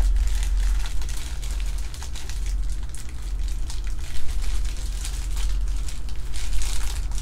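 A thin plastic poly mailer bag crinkling and rustling as hands unfold and peel it open, a steady run of small crackles, over a steady low hum.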